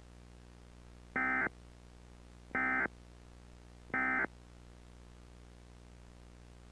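Emergency Alert System end-of-message signal: three short, identical bursts of SAME digital data tones, a buzzy two-tone warble, evenly spaced about a second and a half apart. It marks the end of the alert message.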